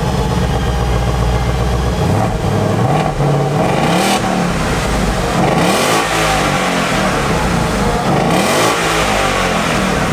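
Ford Mustang GT's V8 running through an AWE Track Edition cat-back exhaust: it holds steady for the first couple of seconds, then is revved several times, the pitch climbing and falling with each blip of the throttle.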